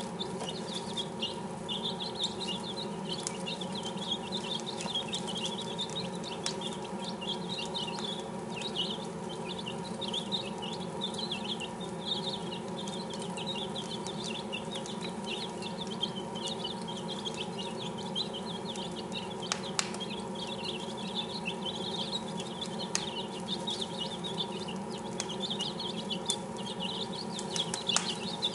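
A brood of six-day-old chicks peeping continuously, many short high chirps overlapping, with a few sharp clicks and a steady low hum underneath.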